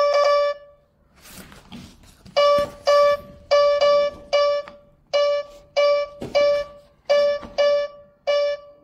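Music: a bell-like keyboard note repeated at one pitch, struck once at the start and then over and over in quick groups of short notes.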